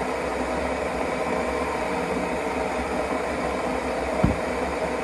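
Steady mechanical hum, with one short low thump about four seconds in as the juice bottle is handled on the counter.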